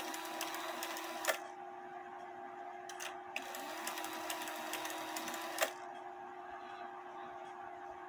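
Regula 701 cuckoo clock movement's gear train running with a fast, fine ticking whirr after its lever is pushed down by hand. It stops with a sharp click about a second in, starts again briefly around three seconds and runs once more until a second click near six seconds. The movement has to be tripped by hand because the lift lever does not lift the rack stop lever enough, as the owner believes its arms are squeezed in too far.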